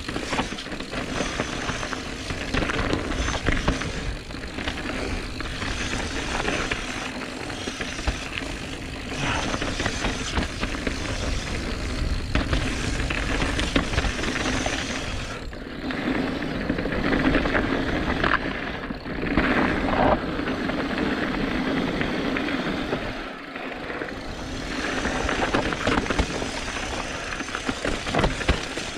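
Mountain bike ridden fast along a rough dirt trail: continuous tyre rumble and rattling of the bike over the ground, dipping briefly a few times.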